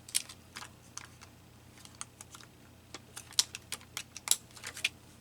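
Irregular sharp clicks and light taps from small paper-craft pieces and tools being handled on a tabletop, with the loudest clicks a little past the middle.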